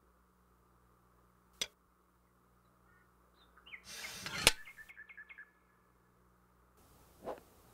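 A sword swung through the air about four seconds in: a short whoosh that ends in a sharp crack. Quick runs of small bird chirps follow it, over a quiet background, with a faint click before and a fainter swish near the end.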